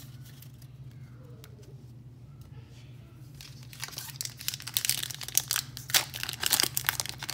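Foil wrapper of a Pokémon booster pack crinkling as hands work it and tear it open. It starts about halfway in and gets louder, after a quiet first half with only faint handling clicks.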